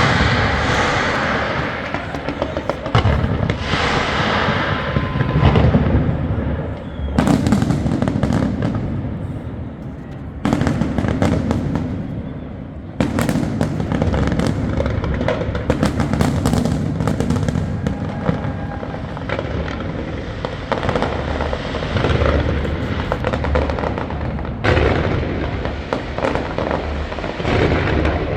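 Large aerial fireworks display: a continuous barrage of shells bursting, with booms and crackling, and music playing along underneath.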